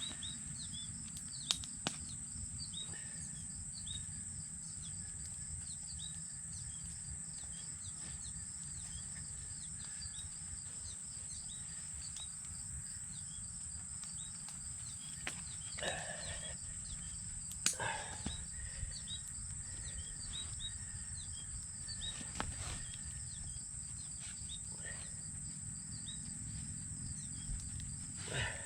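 Outdoor ambience: a steady high-pitched insect trill with many short, rapidly repeated chirps over a low background rumble. A few sharp clicks and short knocks come now and then, most around the middle and near the end.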